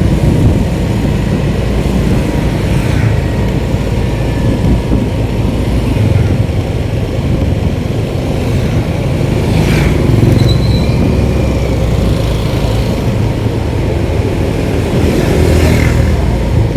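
Steady low rumble of a road vehicle under way, with a few brief swells of hiss.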